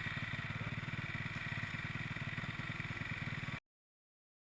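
Off-road motorcycle engine running at a steady, even low speed, its firing pulses regular, until the sound cuts off suddenly about three and a half seconds in.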